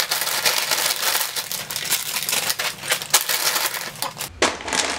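Plastic snack bags crinkling and rustling as they are rummaged through and handled, a dense crackle that stops about four seconds in.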